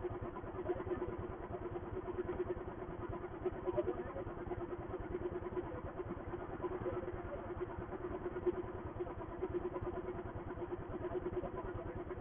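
Royal Enfield Thunderbird's single-cylinder engine idling steadily while the bike stands still.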